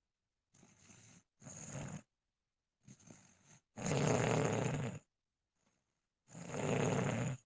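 Snoring: a run of rasping breaths with silent gaps between them, starting faint and growing louder, the loudest about four seconds in and another strong one near the end.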